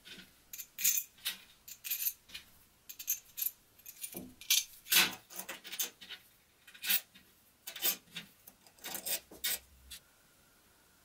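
Small brass standoffs and screws clinking and tapping as they are handled, set down on the bench and fitted into an aluminium plate: a string of sharp metallic clicks that stops about ten seconds in.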